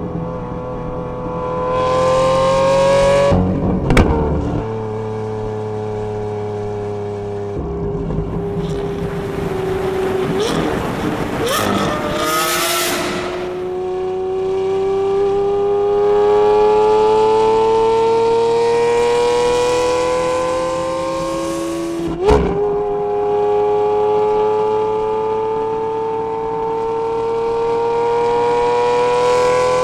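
Lamborghini Aventador SV's naturally aspirated 6.5-litre V12 accelerating hard, its pitch climbing steadily. A sharp crack about four seconds in and again near the twenty-two second mark marks an upshift, each dropping the pitch before it climbs again.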